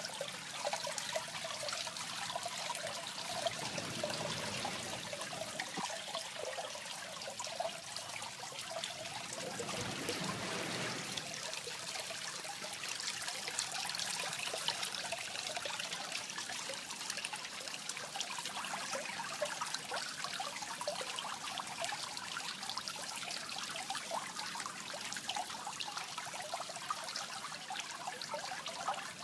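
Water trickling and splashing steadily into a fish pond, with a fine crackle of small splashes and a fuller rush twice.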